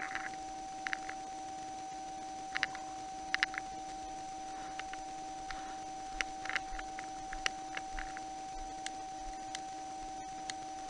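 A steady electrical-sounding hum with faint hiss, broken by irregular short clicks and taps.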